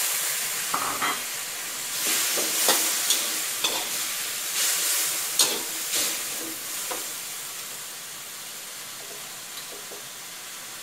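Chinese kale and pork stir-frying in a hot wok, sizzling steadily while a metal spatula stirs and scrapes against the pan with sharp clinks. After about seven seconds the stirring stops and a quieter sizzle goes on.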